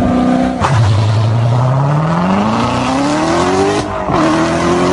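Chevrolet Corvette C7 V8 launching hard from a standstill. The revs are held high, then the note drops about half a second in as the car takes off. It climbs steadily through the gear, dips at a quick upshift near the end, and climbs again.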